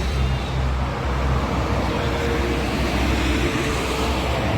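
Toll-road traffic passing close, heavy vehicles' engines and tyres giving a loud, steady low rumble.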